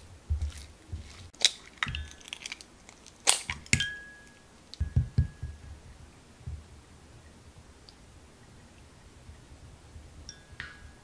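Kitchen utensil work: a spatula scraping and knocking in a glass mixing bowl of choux dough, with sharp clinks in the first few seconds, some of which ring briefly, and a few soft thumps. After that comes quieter stirring of eggs in a ceramic bowl, with one more ringing clink near the end.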